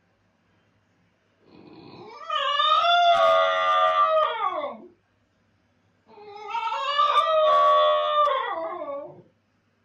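Basenji howling while left alone: two long calls of about three seconds each, wavering in pitch and sliding down at the end.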